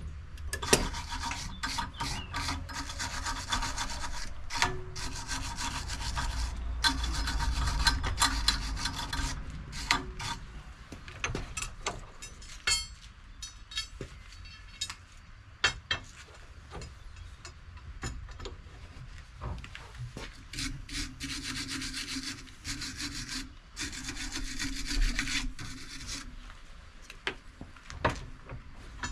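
Electric welding on steel window bars: a crackling, spitting arc full of sharp pops, in two long runs with sparser crackles between.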